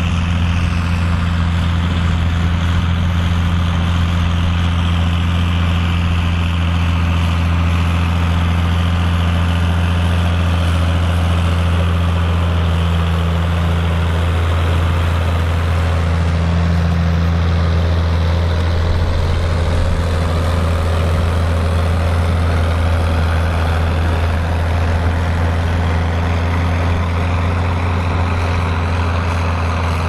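Ford 8000 tractor's six-cylinder diesel engine running steadily under load as it pulls a five-furrow plough through the soil.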